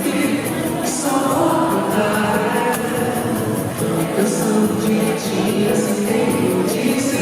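Live pop band music with a singing voice, played at concert volume, with a steady cymbal beat.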